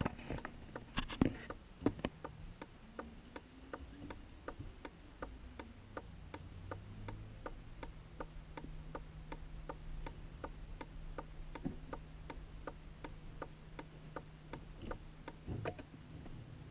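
Car's indicator flasher ticking steadily in the cabin, about three clicks a second, over a low steady hum of the idling engine. A few louder knocks come near the start and again near the end.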